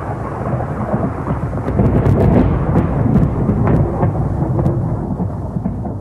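Rolling thunder: a deep, loud rumble that swells about two seconds in and eases toward the end, with a few sharp crackles.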